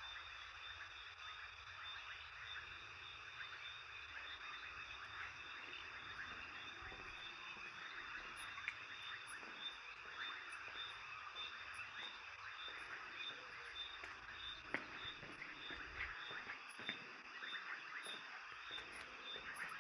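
Night chorus of frogs and insects: dense, steady chattering calls with one high call pulsing at a regular beat.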